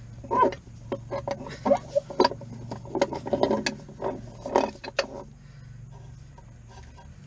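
Tools and metal tractor parts being handled, a quick run of knocks and clinks that stops about five seconds in, over a steady low hum.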